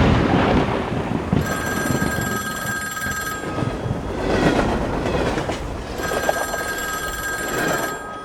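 Rumbling train noise with a bell ringing over it in two bursts of about two seconds each.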